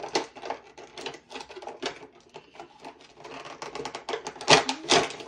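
Crinkling and clicking of a toy figure's cardboard box and plastic packaging being handled, with louder crackles about four and a half to five seconds in.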